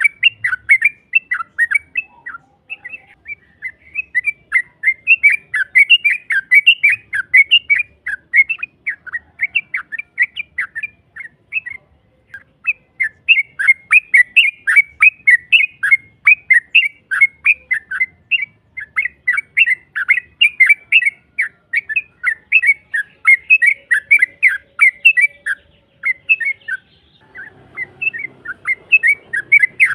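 Yellow-vented bulbul (trucukan) singing a long, rapid run of sharp chattering notes, about four to five a second, pausing briefly twice. This is the long 'ropel' song used as a lure call to draw other trucukan into answering.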